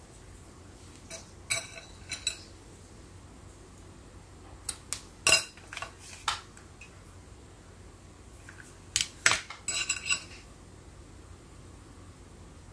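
Small hard objects clinking and knocking together in three short clusters, some knocks with a brief ring: about a second in, around five seconds in, and around nine to ten seconds in.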